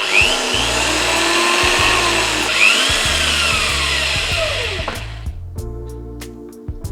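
Electric drill boring a screw hole in an amplifier heatsink, running for about five seconds with its pitch rising and falling as the bit bites, then stopping; background music underneath.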